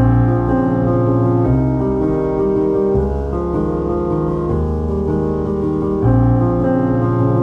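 Background piano music, its chords changing about every second and a half.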